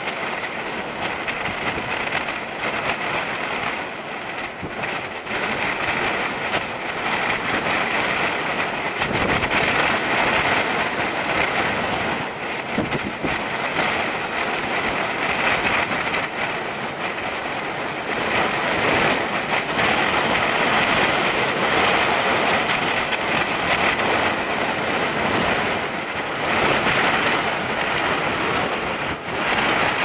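Strong gusty wind rushing and buffeting the microphone, a loud steady roar that swells and eases gust by gust.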